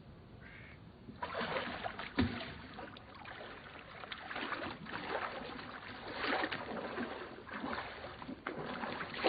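Water sloshing and splashing as an inflated tyre is worked around in water to look for a leak, starting about a second in, with one sharp knock soon after.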